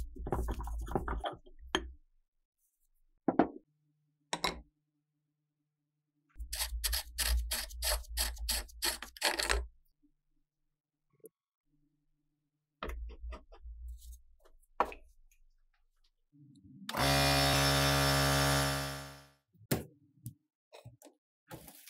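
Metal knocks and bursts of rattling clatter as rusted metal parts are handled at a vise. Near the end an electric motor runs steadily for about two and a half seconds, then winds down.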